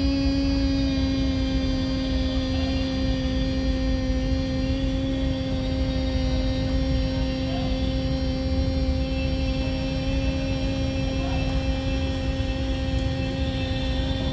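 A woman humming one long, steady, unbroken note with closed lips: the humming-breath (bhramari) yoga exercise.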